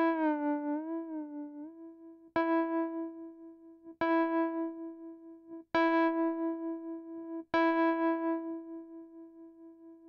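Korg Triton Le synthesizer sounding one keyboard note, struck again and again about every second and a half to two seconds, each strike fading away. In the first two seconds the joystick pitch bender bends the note down about a whole tone and back, twice; the later strikes stay at a steady pitch.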